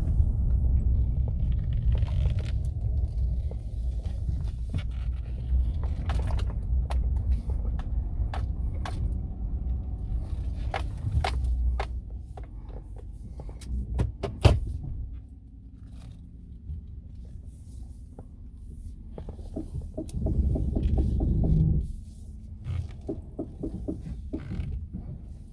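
2014 GMC with its engine running, the steering turned while stopped: a low rumble with a scattering of sharp pops, the strongest a little past the middle. The popping under steering load began after the electric power steering motor was replaced, and its cause is unknown to the owner.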